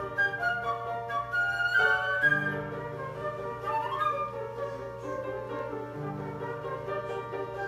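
A small recorder ensemble with piano playing an overture: a recorder melody over sustained low notes.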